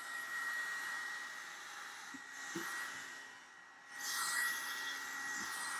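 Revlon One-Step hot-air dryer brush blowing through hair: a steady rush of air with a high whine. It fades briefly about three and a half seconds in, then comes back louder.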